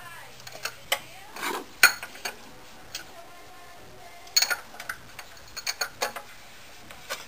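Irregular metallic clicks and clanks of hand tools working on the fan hub nut of a Chevy Trailblazer's 4.2 inline-six, with a brief scraping rattle and a sharp clack a little under two seconds in.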